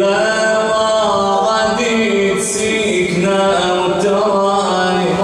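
A man's solo voice chanting a mourning lament, unaccompanied, in long held notes that waver and slide.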